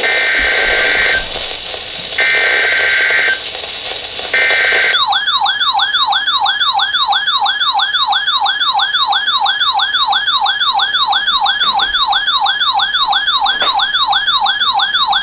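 NOAA Weather Radio Emergency Alert System activation: three short buzzy SAME header data bursts about two seconds apart, then a loud, fast-warbling electronic alert tone, about three warbles a second, that cuts off at the end. The alert marks an incoming Snow Squall Warning.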